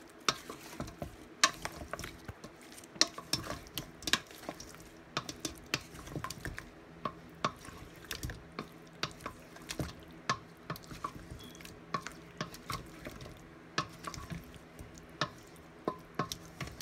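Wooden spoon stirring and tossing sauce-coated chicken wings in a stainless steel bowl: irregular knocks and scrapes of the spoon against the metal bowl, several a second and uneven in strength.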